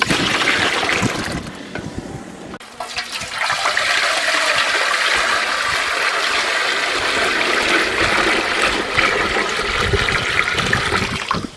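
Water poured in a steady stream from a plastic bucket into an aluminium cooking pot, filling it. The pour starts about three seconds in and cuts off just before the end, after a short splashing of water in the pot at the start.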